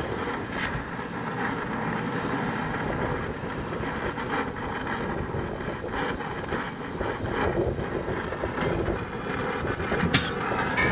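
Brazing torch flame hissing steadily as it heats the brazed copper joint of a refrigeration filter drier so the drier can be pulled off.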